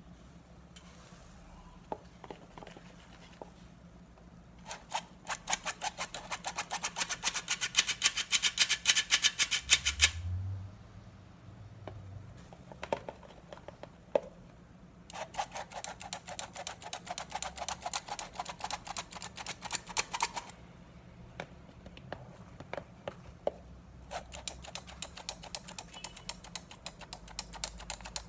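Stainless steel hand-held flour sifter clicking rapidly as it is worked, sifting wheat flour. Three runs of quick, even clicks with short pauses between them, and a few single taps in the pauses.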